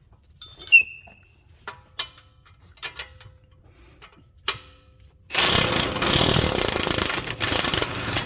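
A few sharp metal clinks and taps as a socket and extension are fitted. Then, about five seconds in, a power tool starts and runs loudly to spin the 17 mm lower shock-mount nut off a Nissan S12's rear shock.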